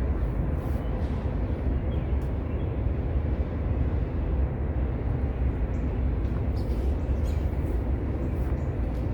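Steady low outdoor rumble with an even background hiss and a few faint, short ticks.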